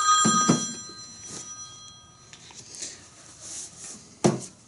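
A bell-like ringing tone made of several steady pitches dies away about two seconds in. Near the end there is a single sharp knock as a grease cartridge is set down on the metal tool cart.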